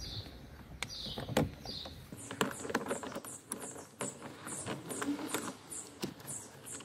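Metal clicks and taps from a socket wrench with an extension turning a 24 mm steering-wheel retaining nut loose on the steering shaft, irregular, with one louder click about a second and a half in.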